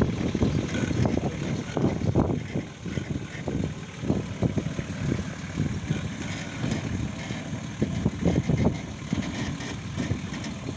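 Engine of a short-wheelbase Nissan Patrol 4x4 working under load as it crawls up a steep sandy rut, its note rising and falling unevenly with the throttle.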